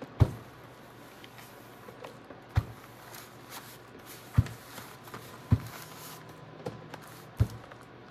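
Household iron pressed and slid over crinkly waxed packing paper, with about six dull knocks at uneven intervals as it is set down and pushed across the sheet, and the paper rustling faintly beneath.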